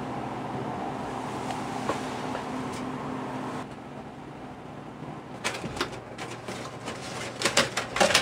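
Cardboard donut box being handled and opened by hand: a run of papery crackles and taps in the last few seconds, loudest near the end. Before that, a steady low hum that stops about three and a half seconds in.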